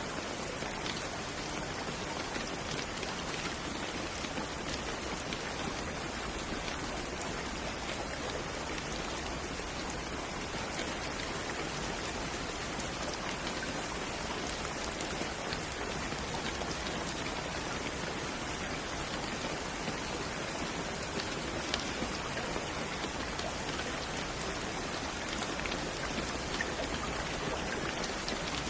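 Steady rain falling, a continuous even hiss with scattered drop ticks.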